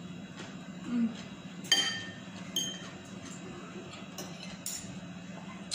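Metal spoon and fork clinking against a ceramic plate while scooping rice: two sharp, ringing clinks in the first few seconds, then a few lighter taps. A steady low hum runs underneath.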